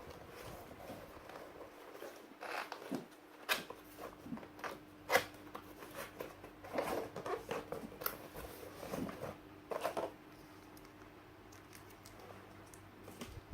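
Keyboard box and packaging being handled and opened: irregular rustling, tearing and scraping with scattered clicks, quieter after about ten seconds.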